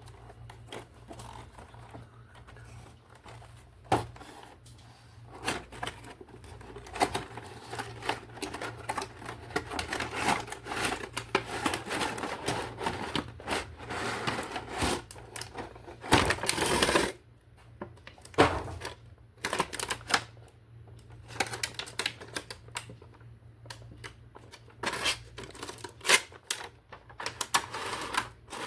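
Hands unboxing a plastic toy: packaging rustling and crinkling, with many sharp plastic clicks and knocks, thickest in the first half, over a steady low hum.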